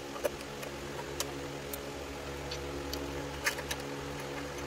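A handful of short, irregular clicks and taps from tools and parts as the mini bike's throttle is taken off, the sharpest about three and a half seconds in, over a steady hum.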